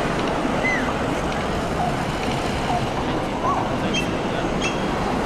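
Steady rushing background noise with a few short, high chirps over it.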